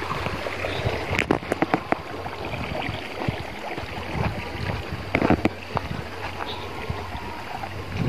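Steady rush of a small stream, with a low rumble and irregular thumps and rustles of footsteps through grass.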